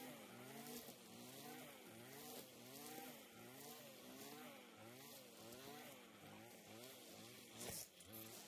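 Engine string trimmer running, its pitch rising and falling about twice a second as it cuts grass, with a short knock near the end.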